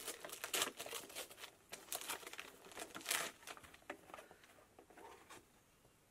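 Gift wrapping paper rustling, crinkling and tearing as a present is unwrapped: a run of irregular rips and crackles, loudest in the first second and thinning out toward the end.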